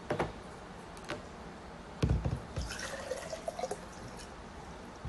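Water being poured into a portable electric kettle, with a few clicks and a dull thump of handling about two seconds in.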